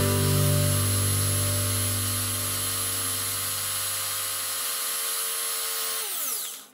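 Small electric rotary tool spinning a doll-eyeball blank on its shaft, running with a steady high whine. Near the end it winds down, its pitch falling, and then it stops.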